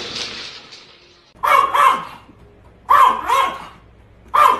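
Small dog barking in quick pairs of short yaps, three double barks about a second and a half apart, starting about a second and a half in.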